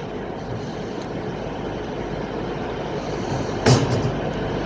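Diesel train idling at a station platform: a steady rumble and hiss that grows slightly louder, with one short sharp noise about three and a half seconds in.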